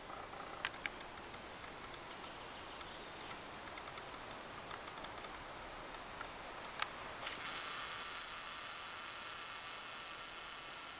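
Scattered small clicks and ticks of handling noise, with one sharper click near the middle. Then the camcorder's zoom motor whirs steadily, high-pitched, as the lens zooms out.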